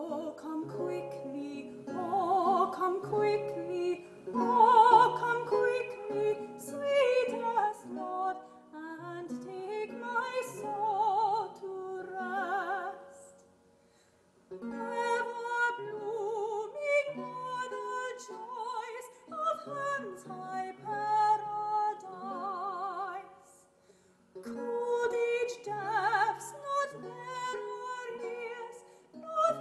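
A woman sings with a wide vibrato to a plucked lute accompaniment, in three phrases separated by two short pauses.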